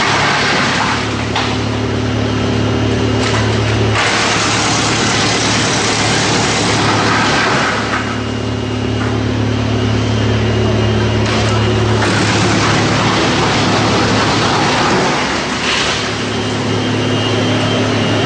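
Industrial wood chipper running steadily, a low machine hum under a hiss that swells and fades every few seconds.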